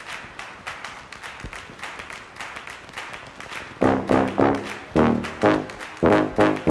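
Background music: a quiet, evenly pulsing beat, joined about four seconds in by loud brass notes in a regular rhythm.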